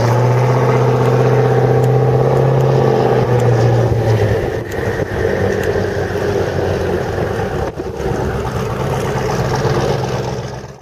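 Twin-turbo LS V8 engine of a Chevrolet Camaro running at steady low revs as the car cruises. About four seconds in, the even hum gives way to a rougher, slightly quieter engine sound, which fades out at the end.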